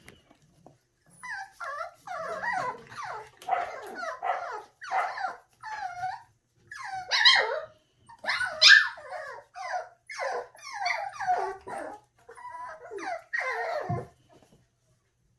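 Seven-week-old puppies yapping, a rapid string of short, high calls that starts about a second in and runs until shortly before the end.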